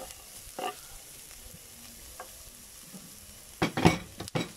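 Chopped onion and garlic sizzling faintly in oil in an electric rice cooker's non-stick inner pot as they sauté. A metal ladle stirs them, scraping and knocking against the pot in a quick cluster of loud strokes about three and a half seconds in.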